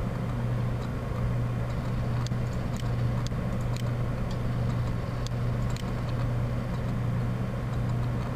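Steady low electrical hum from the recording setup, with a few faint clicks scattered through the middle: a computer mouse being clicked.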